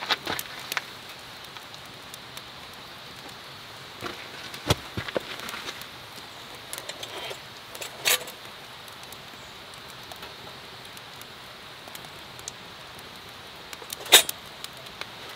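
A hurricane lantern being handled: a few sharp metal clicks and clinks, a short one about 8 seconds in and the loudest near the end, over a faint steady hiss.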